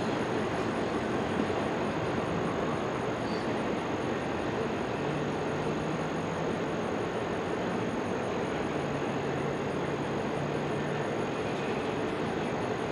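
A freight train rolling past, a steady rumble of wheels on rail.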